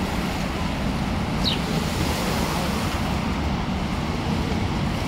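Steady rushing roar of the Rhine Falls waterfall, with wind on the microphone. A short, high, falling chirp comes about a second and a half in.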